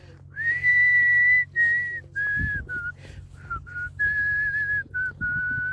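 A person whistling a short tune: a long first note that slides up and holds, then about eight shorter notes stepping lower.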